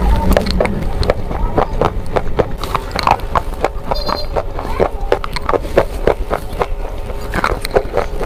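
Close-up crunching as someone bites and chews hard red clay pieces coated in wet white chalk (khadi) paste: sharp, irregular crunches, several a second.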